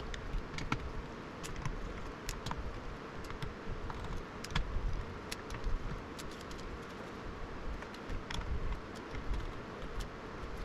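Scattered small clicks and light rattles of hands working on a graphics card with tools and small parts, unevenly spaced, over a steady background hum and hiss.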